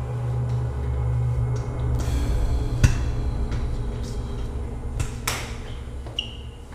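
Low, sustained background music, with a sharp knock about three seconds in and two more about five seconds in.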